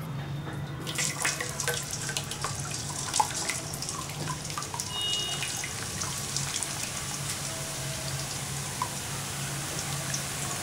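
Drops of boondi batter sizzling and crackling in hot frying oil as they fall through a perforated ladle. The sizzle starts about a second in and then stays steady and dense.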